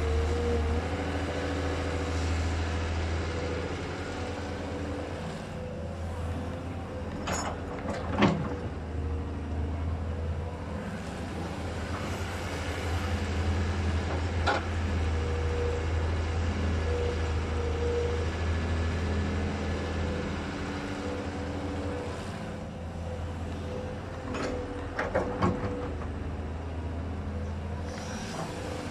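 Kobelco hydraulic excavator's diesel engine running steadily as the machine digs and swings. Several sharp metal clanks come from the bucket and arm: the loudest about eight seconds in, another near the middle, and two close together near the end.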